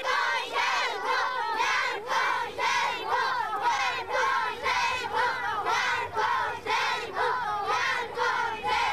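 A crowd of voices shouting and yelling together, in repeated cries about twice a second.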